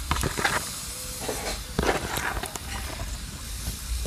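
Pieces of fish sizzling as they go into hot oil and masala in a metal pan. The sizzle starts at the outset, with a few sharp knocks of pieces and the spoon against the pan.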